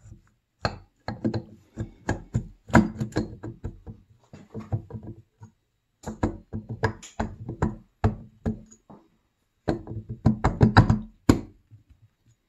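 Irregular knocks and clinks of a snowmobile two-stroke engine's cylinder being rocked and worked down by hand over its piston and base studs onto the crankcase. They come in bursts with short pauses between.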